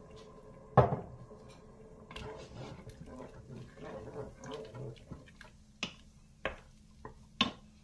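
Wooden spoon stirring food and white wine in a Cookeo multicooker's inner pot: a sharp knock about a second in, then a stretch of wet scraping and stirring, and a few shorter knocks of the spoon against the pot near the end.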